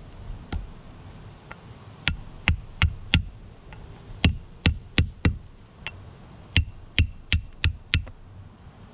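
Steel chisel tapping a hand-held Moroccan geode along its saw-cut groove: about fourteen light, sharp taps in uneven clusters of two to four, with the rock turned between taps to fracture it open gradually.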